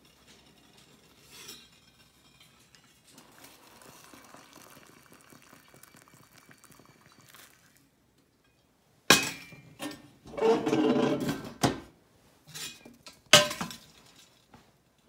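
Metal kitchenware being handled on an Aga range cooker around a stainless stovetop kettle. A faint steady hiss comes first. Then there are sharp metallic clanks and about a second and a half of rattling and scraping, with the loudest clank near the end.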